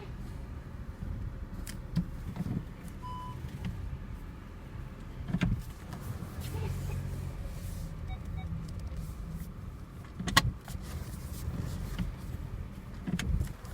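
Inside a car with a 7-speed dry-clutch DSG (DQ200): a low engine hum with irregular clunks and clicks, the loudest about ten seconds in, and a short beep about three seconds in. The owner takes the clunks for abnormal noise from the dry-clutch gearbox.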